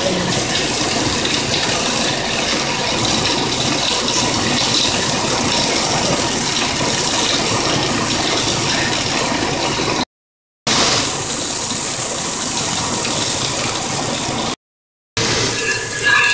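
Steady hiss and rattle of a pot of water at the boil on a gas stove, while boiled potatoes are lifted out with a wire-mesh skimmer. The sound cuts out completely twice, briefly.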